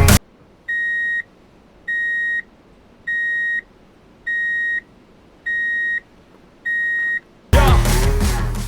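Homemade fire alarm's buzzer beeping six times in a steady rhythm, each beep a single high-pitched tone about half a second long, a little over one a second: the alarm going off. Music cuts back in near the end.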